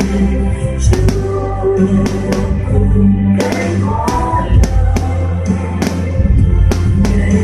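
Loud music with a steady drum beat and heavy bass.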